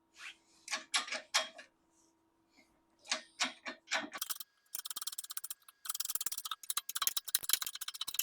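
A series of sharp clicks: a few separate ones, then from about halfway a fast, continuous run of ticking, over a faint steady hum.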